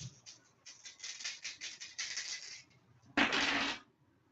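Dice shaken, rattling with quick clicks for about two seconds, then thrown and tumbling loudly across a hard surface for about half a second, a little after three seconds in.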